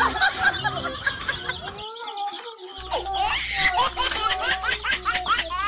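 Many young chicks peeping in quick, overlapping high chirps while a small child laughs.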